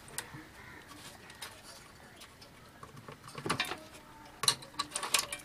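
Small clicks and rattles of wire-harness plugs being pulled from a CRT television's circuit board, with the loose wires being handled. They come in scattered bunches, most about three and a half and about five seconds in.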